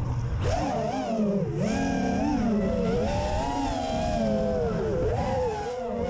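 FPV racing quadcopter's brushless motors and propellers whining, the pitch rising and falling with the throttle. The pitch dips briefly about one and a half seconds in and again near the end.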